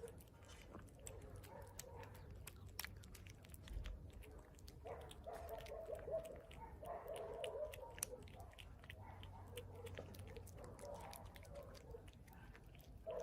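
Street cat chewing food, with many small sharp clicks and smacks. From about five seconds in, it makes a wavering vocal noise while still eating.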